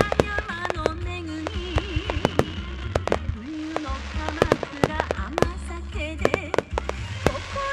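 Fireworks of a synchronised starmine display: many sharp bangs and crackling bursts, several a second and unevenly spaced. A song with a woman singing plays underneath with a steady bass.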